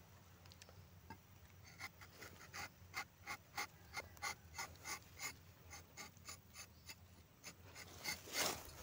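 Rubber-tapping knife shaving a thin strip of bark along the tapping cut of a rubber tree: a run of short scraping strokes, about three a second, starting about two seconds in. A louder burst of noise comes near the end.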